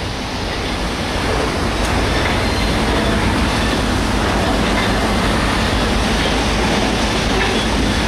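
Sawmill log yarder running steadily while its winch hauls logs in on the line: a continuous rumble with a faint steady hum.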